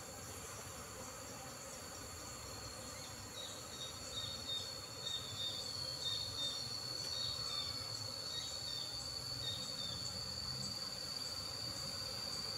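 A steady, high-pitched insect trill, with short repeated chirps through the middle. Beneath it is a low hum of honey bees buzzing around the opened hive, growing louder near the end.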